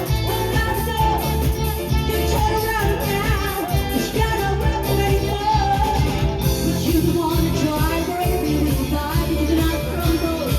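Pop-rock music with a singing voice over a steady band accompaniment.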